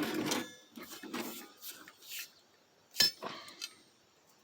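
Metal hand tools being handled and moved around, with scattered knocks and rattles and one sharp metal clank about three seconds in.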